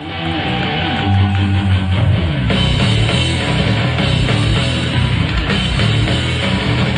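Hard rock band playing live: distorted electric guitars, bass guitar and a drum kit, cutting in suddenly out of silence.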